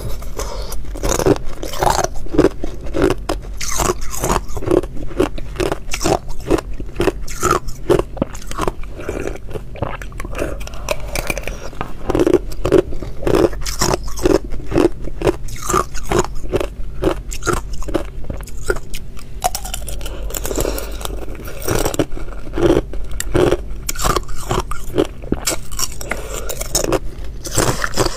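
Thin sheets of ice being bitten and chewed, a dense run of sharp crisp crunches and crackles several times a second, mixed with the cracking and scraping of thin ice being broken out of a silicone mould.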